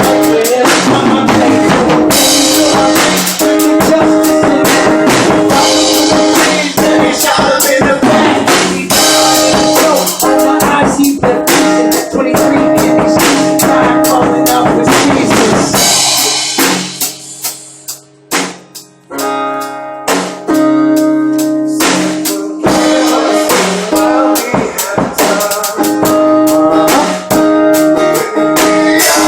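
Instrumental hip-hop beat with a drum kit of kick, snare and rimshot under sustained melodic tones. About halfway through, the drums drop out for several seconds, leaving only the held tones, then the full beat comes back in.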